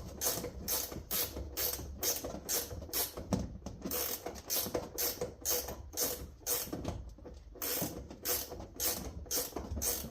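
Hand ratchet wrench clicking in an even rhythm, about three clicks a second, as the seat mounting nuts and bolts are backed off. There is a short pause about seven seconds in.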